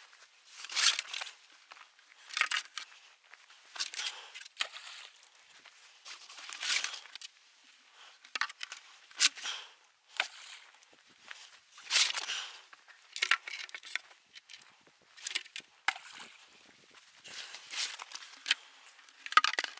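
Duck decoys being pulled from a bag and tossed one after another onto a pond: repeated rustling of the bag and dry grass, with splashes as the decoys land, about every one to two seconds.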